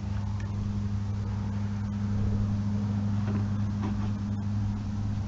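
Steady low droning hum of an engine running, like a vehicle idling nearby, unchanging throughout, with a few faint handling sounds of a rag on the hatch strut mount.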